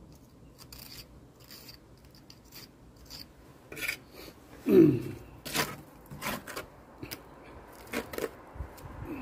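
Small steel trowel scraping and pressing lime mortar into the joints of a cobbled brick wall panel: a string of short, irregular rasping strokes, with one louder, sharper scrape about five seconds in.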